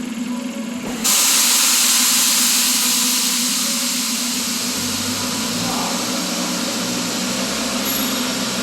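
Kia Optima 2.4-litre GDI four-cylinder engine running with a steady hum. About a second in, a loud rushing hiss starts suddenly and then slowly eases as the engine is loaded in drive against the brake, a load test for the cylinder 2 misfire after a spark plug change.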